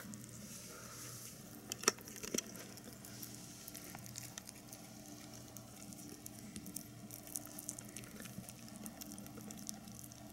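A black-and-white Dutch-marked rabbit chewing and nibbling a peeled banana: soft, wet munching made of many small quick clicks, with a couple of sharper clicks about two seconds in.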